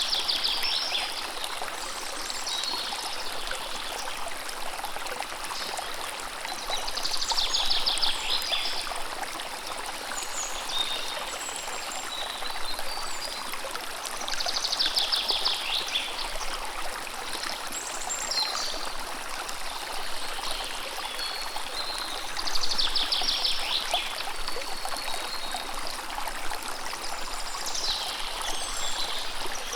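A stream running steadily, with a songbird repeating a short trilled song about every seven seconds and a few brief higher chirps between.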